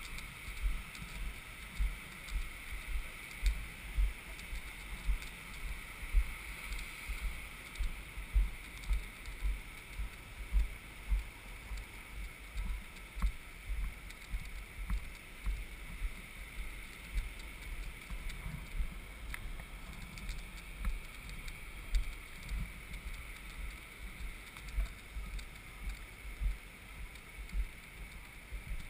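Repeated low thumps on the microphone, roughly one a second, over a steady hiss: a moving camera buffeted by wind and jolted as it travels across the sand.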